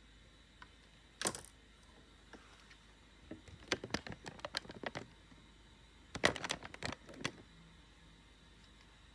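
Sharp clicks and light rattling from small laptop parts and tools being handled while a replacement touchscreen panel is fitted: one click about a second in, then two quick runs of clicks in the middle.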